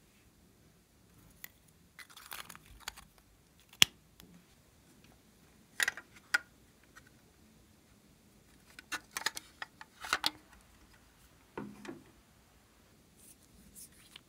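Small plastic cosmetic items, a lip balm tube and a plastic container, being handled by hand, giving scattered clicks, taps and short rustles. One sharp click is the loudest sound.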